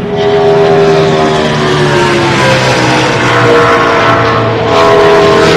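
NASCAR Cup stock car's pushrod V8 running at speed and passing by, its engine note falling in pitch as it goes away. Near the end the engine sound swells loud again.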